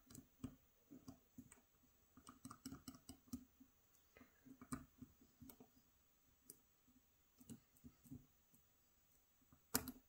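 Faint, irregular clicking and ticking of a lock pick working the pins of a Gege AP3000 pin-tumbler cylinder, with one sharper click near the end.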